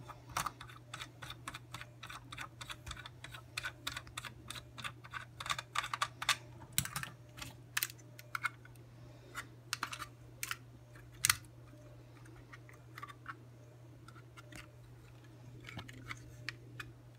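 Quick, irregular clicks and taps of hands handling a racing quadcopter's canopy and carbon fiber frame while trying to open it. The clicks are dense at first and thin out after about eleven seconds, over a faint steady low hum.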